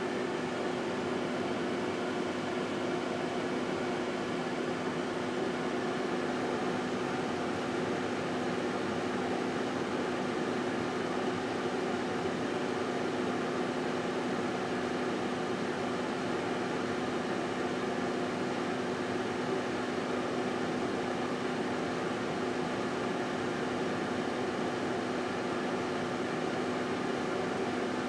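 1978 GE Dual Wave microwave oven running with a steady hum.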